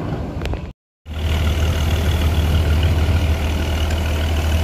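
Diesel engine of a loaded steel cargo boat running steadily with a deep, even hum while its propeller churns the water at the stern. There is a brief dropout to silence about a second in.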